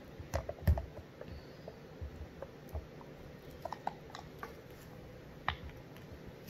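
Plastic baby food cups being handled, giving a scatter of small clicks and knocks. The loudest come about a second in, with lighter taps later.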